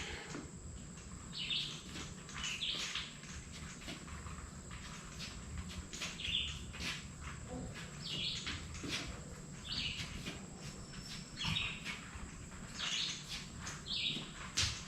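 A bird chirping over and over, short high calls every second or two, with faint scattered clicks and rustling under them.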